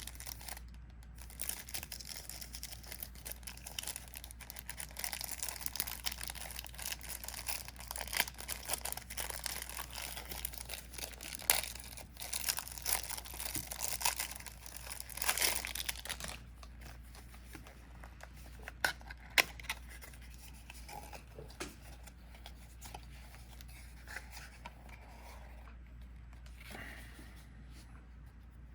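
Plastic wrapping of a trading card starter deck being torn and crinkled open. It is busiest over the first half, then gives way to sparser rustling and a few light clicks.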